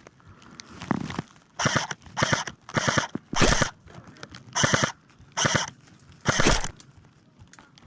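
CYMA MP5 airsoft electric gun firing seven short bursts, each a quick rattle of shots, spaced about half a second to a second apart.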